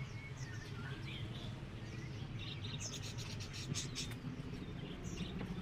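Scattered short chirps and calls from many caged small songbirds, over a steady low background hum.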